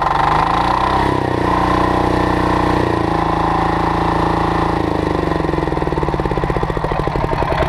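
Loncin diesel engine on a pressure washer, just pull-started, running: its revs rise about a second in, hold steady, then drop from about five seconds in as the engine slows down.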